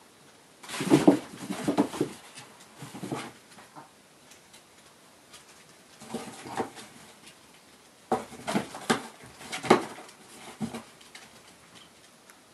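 A Chihuahua pawing and nosing at an open cardboard box, heard as several bursts of short knocks and scrapes on the cardboard with quiet gaps between.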